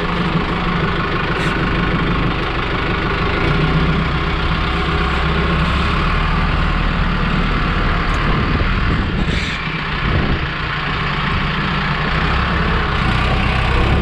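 Mahindra Arjun 555 tractor's diesel engine running just after start-up as the tractor moves off slowly. The engine note dips briefly about ten seconds in.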